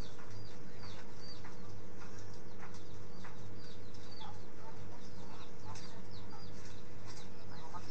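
Birds chirping: short high chirps repeating about twice a second, with a few lower calls among them, over a steady low hum.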